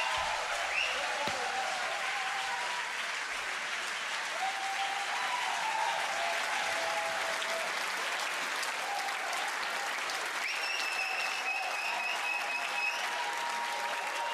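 Audience applauding and cheering at the end of a live funk song, with a long, steady high whistle for a few seconds past the middle.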